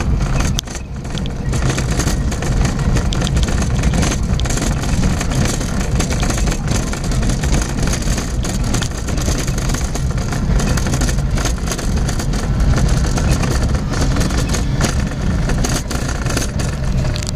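Car driving over an unpaved dirt roadbed, heard from inside the cabin: a steady low engine and tyre rumble with scattered knocks and rattles from bumps.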